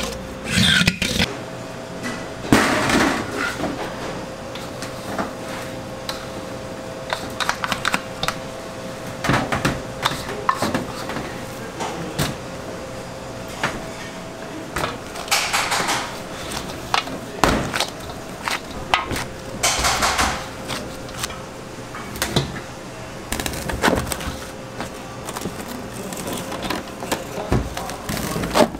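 Irregular knocks, scrapes and clatters of stainless steel bowls as a large mass of bread dough is handled, lifted out of a mixer bowl and set into another bowl, over a faint steady hum.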